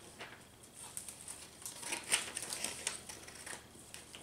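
Sheets of paper rustling and crinkling as they are cut with scissors and a folded paper snowflake is unfolded by hand, in irregular short crackles, loudest about two seconds in.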